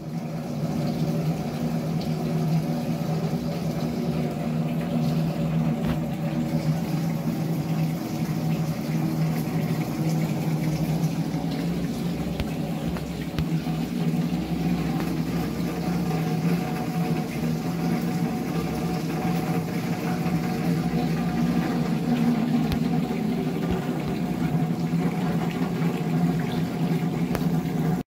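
Water pouring and splashing onto drums and a cymbal standing in a shallow pool, with many small taps, over a steady low hum.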